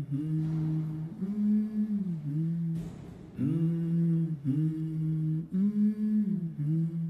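A low voice humming a slow melody of long held notes, stepping up and back down. The phrase breaks off about halfway and then repeats.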